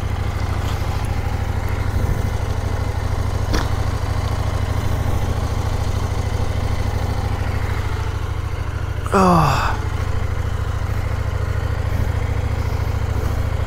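CFMoto 800MT Explore's parallel-twin engine idling steadily. About nine seconds in there is a brief voice sound with a sliding pitch.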